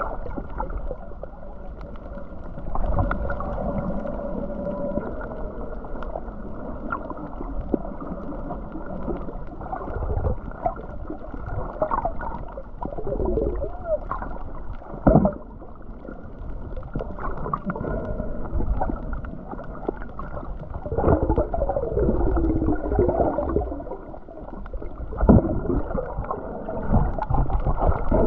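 Muffled underwater sound picked up by a camera held beneath the surface: water sloshing and gurgling, a few sharp knocks, and wavering pitched tones that slide up and down.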